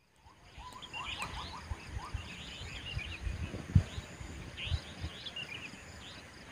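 Dawn birdsong: several birds chirping and trilling in quick, repeated phrases over a steady high-pitched background hum. The sound fades in at the start, and a few low thumps break in, the loudest near the middle.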